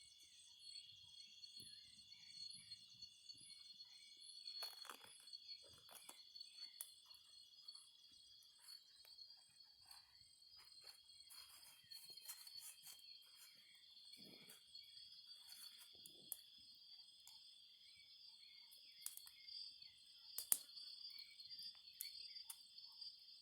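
Steady high-pitched chirring of insects, with scattered faint clicks and snaps and one sharper click about twenty seconds in.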